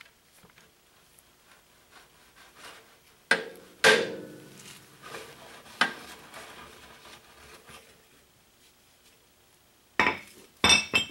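Steel brake pedal cross shaft of a Ford 8N tractor being worked out through its cast-iron housing: sharp metallic knocks and clanks with a short ring, the loudest about four seconds in, and a quick cluster of three near the end.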